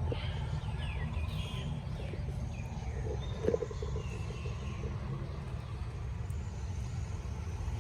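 Steady low outdoor rumble, with a few faint high chirps in the first couple of seconds and again near the middle, and a short knock about three and a half seconds in.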